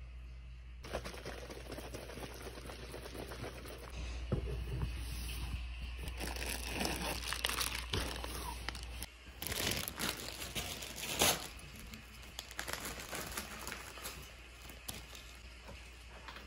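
Crinkling and rustling of objects being handled, with scattered clicks and taps; a sharp click about eleven seconds in is the loudest. A steady low hum runs underneath.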